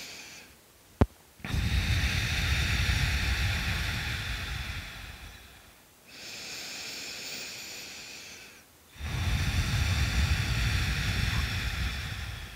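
A woman's slow, deep breaths close to the microphone, in two full cycles. Each cycle is a quieter inhale of about two and a half seconds followed by a louder, longer exhale of about four seconds. A single short click comes about a second in.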